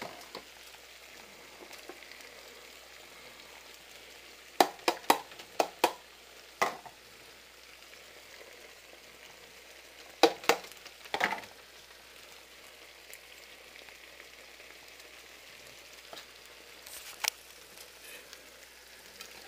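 Chicken pieces in curry paste frying in a pan, with a steady low sizzle. Sharp knocks against the pan cut through it: about five in quick succession around five seconds in, a few more around ten to eleven seconds, and one near the end, as chopped onion and green pepper go in and are worked into the pan.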